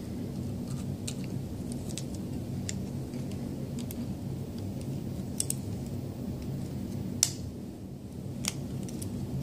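Scattered sharp metallic clicks and ticks from needle-nose pliers and a steel AR magazine spring knocking against a plastic Magpul anti-tilt follower as the spring's end is worked into the follower. The sharpest click comes about seven seconds in, over a steady low hum.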